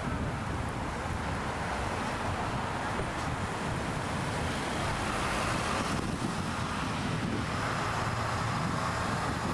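Street traffic: cars driving past, with a box delivery truck passing near the end.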